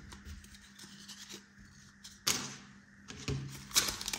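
Trading cards being handled: faint sliding and shuffling, with a sharp tap a little past halfway and a few softer clicks near the end.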